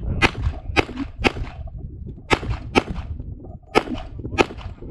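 Pistol shots fired in a competition string: seven sharp cracks, three in quick succession in the first second or so, then two, then two more, each with a short ring-out.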